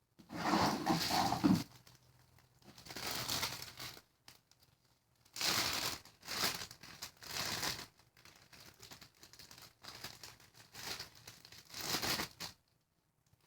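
Slime being squeezed and worked by hand, making crinkly, crackling noises in a series of bursts with softer crackling between them, stopping shortly before the end.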